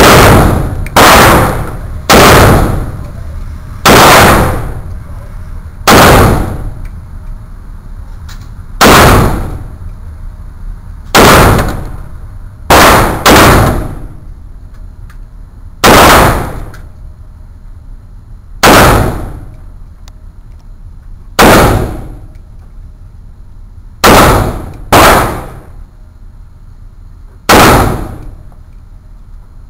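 AK-47 rifle fired in single shots at an uneven pace, about fifteen very loud reports spaced one to three seconds apart, with two quick pairs. Each report rings on briefly in the echo of the indoor range.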